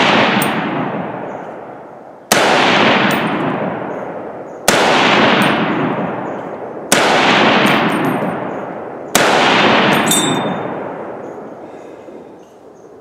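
M1 Garand rifle in .308 Winchester firing four semi-automatic shots about two and a half seconds apart, each shot echoing and dying away over about two seconds. Just after the last shot comes the ringing ping of the empty en-bloc clip ejecting, the sign that the clip's last round has been fired.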